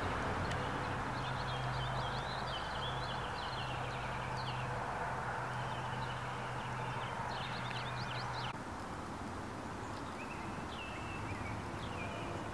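Outdoor ambience: a steady background hiss with small birds chirping on and off, over a low steady hum. The hum stops and the background drops slightly about eight and a half seconds in.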